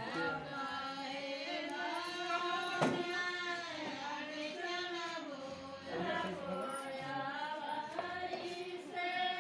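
Voices singing a slow song with long held, wavering notes. A sharp click sounds about three seconds in.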